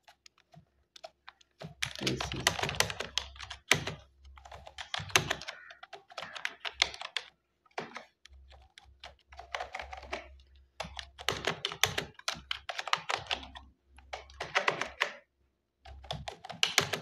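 Typing on a computer keyboard: quick runs of keystrokes separated by brief pauses.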